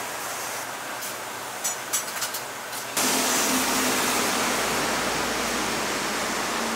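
Steady rushing background noise with a few light clicks about two seconds in; the noise jumps louder at about three seconds and stays there.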